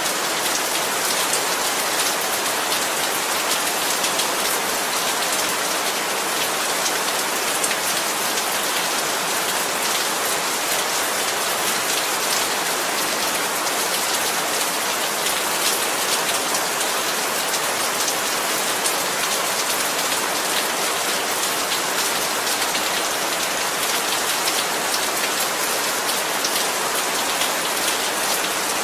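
Heavy rain falling steadily, a dense even hiss of drops striking surfaces with many small ticks.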